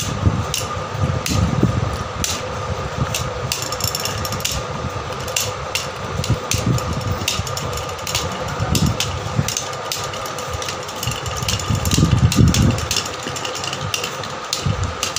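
Two Beyblade Burst Turbo tops, Dead Hades and Emperor Forneus, spinning and clashing in a stadium: irregular sharp clicks of the tops knocking together over a steady hum, with a few low knocks about twelve seconds in.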